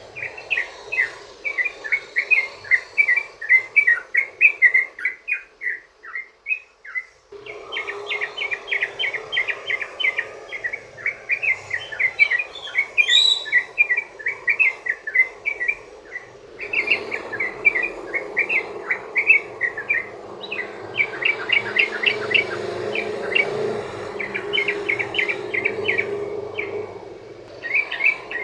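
Yellow-vented bulbul (trucukan) singing long runs of quick chattering notes, phrase after phrase with only brief pauses, over a steady background hiss.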